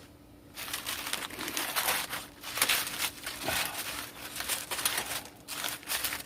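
Crumpled paper rustling and crinkling in irregular bursts as it is pushed and packed into a charcoal starter, with a faint steady hum underneath.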